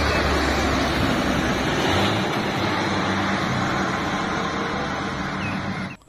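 Heavy diesel lorry hauling an excavator on a low-loader trailer, its engine humming steadily under tyre and road noise as it drives along the road. The engine note shifts slightly about two seconds in and the sound eases a little toward the end.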